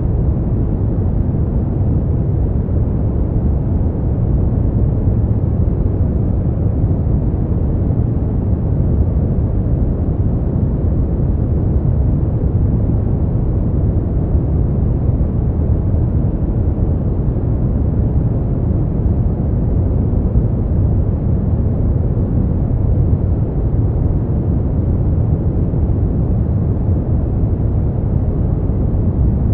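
Brown noise: a steady, even hiss weighted heavily toward the low end, like a deep rumble with little treble and no changes.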